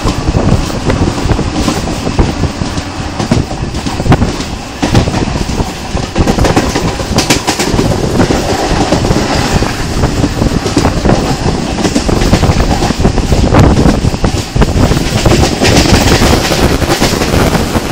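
Passenger train running at speed, heard from a coach window: a steady loud rumble of wheels on the rails, broken by repeated clicks as the wheels cross rail joints.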